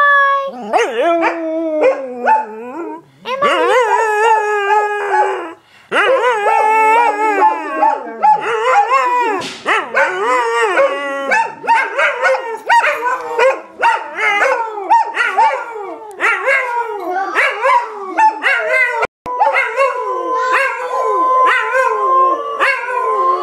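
Dogs howling: long, wavering howls that overlap one another, with a few short breaks.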